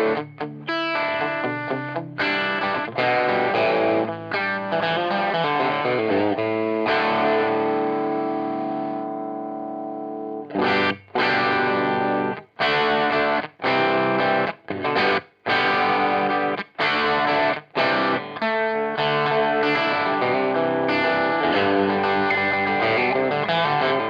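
Strat-style electric guitar played through an MXR DD25 Dookie Drive overdrive pedal, its blend set half clean and half drive, into a cab simulator. Strummed chords are cut off short, with one chord left to ring for about three seconds a third of the way in.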